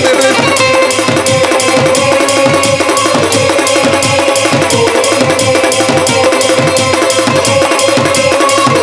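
Instrumental passage of a live devotional stage band: a fast, busy drum rhythm under a held melodic note, with no singing.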